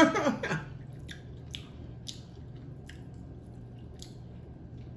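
Close-miked chewing and lip-smacking while eating pork neck bone meat: short wet clicks about twice a second.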